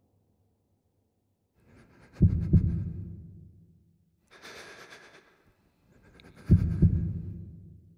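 Two deep double thuds like a slow, heavy heartbeat, about four seconds apart, each ringing out for over a second. Between them comes a short breathy hiss.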